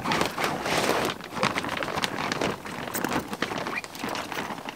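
Uncharted Supply Co Rapid Raft packraft's coated fabric hull rustling and crinkling as it is handled and collapses while being deflated, with many small crackles and rubs.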